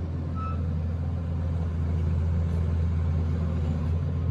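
Diesel engine of a Doosan crawler excavator running at a steady speed, a deep even drone that swells slightly after about a second.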